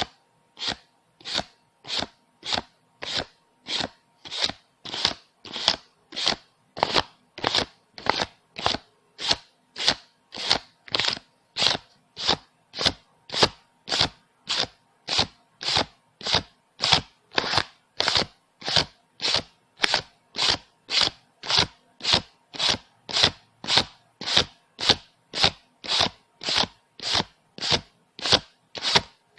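Paper banknotes being counted, each bill giving a short crisp swish, about two a second in a steady, even rhythm.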